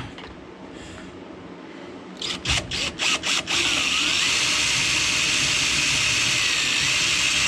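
Power drill turning a flathead screw out of boat hardware: a few short triggered bursts about two seconds in, then running steadily for about four seconds before stopping.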